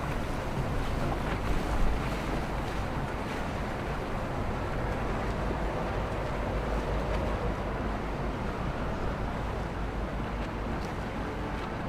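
Boat motors running amid waves and water noise, with wind buffeting the microphone.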